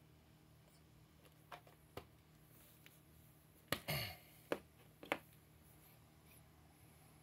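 A handful of sharp clicks and knocks in a quiet room. Two faint ones come early, then a louder cluster about four to five seconds in, with a brief scrape among them.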